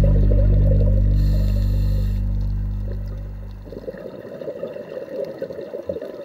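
The last low chord of the background music rings on and fades away over about four seconds. Then irregular bubbling, gurgling water takes over.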